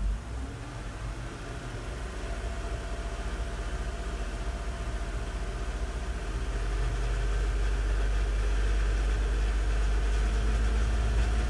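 Car engine starting with a brief rise in pitch, then idling steadily and getting louder about six and a half seconds in. The engine has intermittent misfires, traced to a faulty intake manifold runner control.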